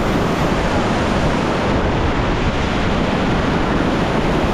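River whitewater rushing steadily: a loud, even noise of moving water.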